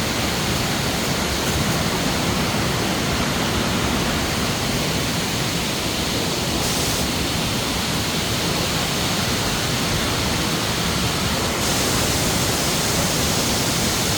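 Water from a pair of waterfalls plunging into a pool, making a steady rushing roar with no break or change.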